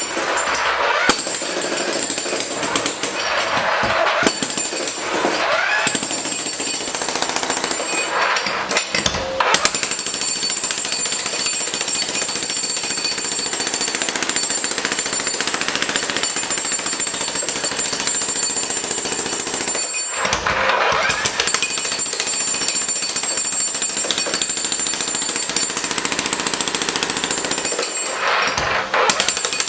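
Jackhammer breaking up concrete curbs, hammering continuously with a few brief pauses.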